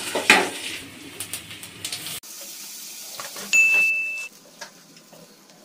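Leafy greens (saag) being stir-fried in a metal kadai: sizzling, with a spatula scraping against the pan. The sound cuts off sharply about two seconds in. A brief steady high-pitched tone follows about a second later, then faint light ticks.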